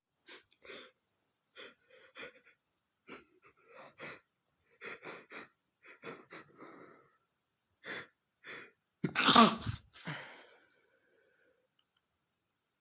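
A man's sneeze build-up: a series of short, sharp breaths, then one loud sneeze a little after nine seconds in and a brief breath after it. It is a sneeze he tries hard to hold back but cannot stop.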